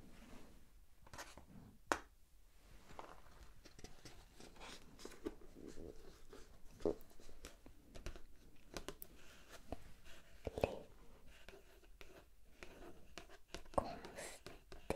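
A page of a large hardcover book being turned, with paper rustling and crinkling, and fingers handling and pressing on the paper. A few sharp clicks stand out, about two, seven, eleven and fourteen seconds in.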